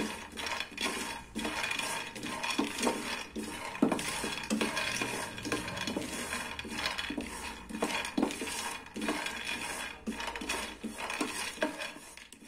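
Raw peanuts being roasted in a non-stick frying pan and stirred with a wooden spatula: a continuous irregular rattle of nuts knocking and rolling against the pan, with the spatula scraping the pan's base.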